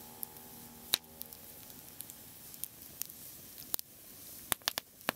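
Firewood burning in a fire pit, crackling: irregular sharp pops and snaps over a low hiss, the loudest pop about a second in and a quick run of snaps near the end.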